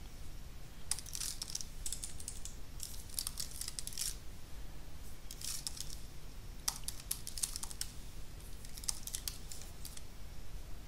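Typing on a computer keyboard: quick runs of keystrokes in several short bursts with brief pauses between them.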